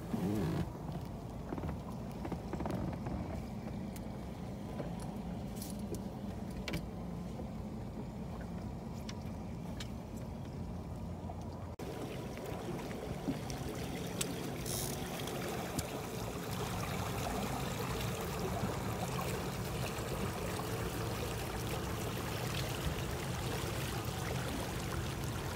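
Boat motor running steadily under way, with water rushing past the hull. The sound breaks briefly about twelve seconds in and carries on slightly louder.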